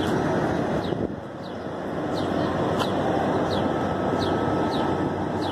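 Steady hum of downtown city traffic, with short high falling chirps repeating about once a second.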